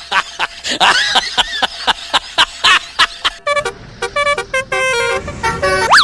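A quick run of clicks and short sliding chirps, then a multi-tone telolet bus horn sounding a melody of stepped notes for the last few seconds.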